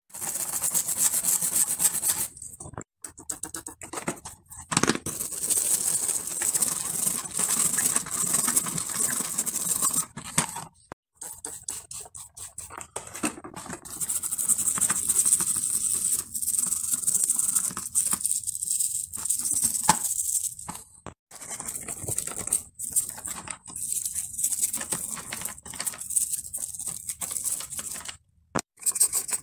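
A stiff brush scrubbing a greasy bicycle rear derailleur, a dense scratchy rasp of many quick strokes. It comes in stretches broken by several sudden short gaps.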